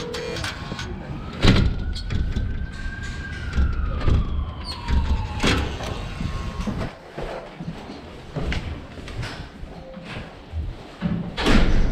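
A siren sounds once, its pitch rising and then sliding down over about five seconds. Meanwhile a building's front door is opened and shut, with sharp knocks and clatter at about a second and a half, at five and a half seconds, and loudest near the end.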